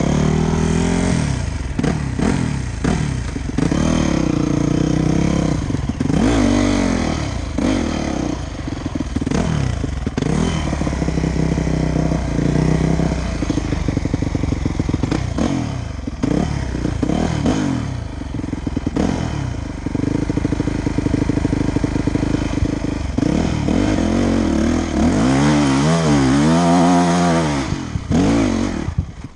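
Yamaha dirt bike engine revving up and down over and over as it is ridden over rough trail and up a steep dirt climb, with knocks and rattles from the bike over the ground. Near the end it is blipped rapidly up and down on the climb, then the engine sound drops away at the very end.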